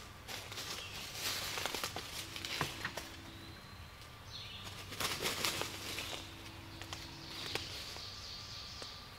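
Footsteps in dry leaf litter, then rustling and flapping as a freshly shot wild turkey gobbler is grabbed and lifted, its wing feathers brushing and beating. The loudest rustling comes about a second in and again about five seconds in.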